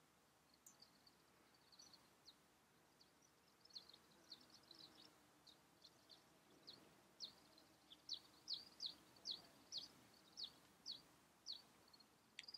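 A bird calling with short, thin, high chirps, each dropping quickly in pitch. They come sparsely at first, then from about four seconds in grow louder and steadier, at roughly two a second.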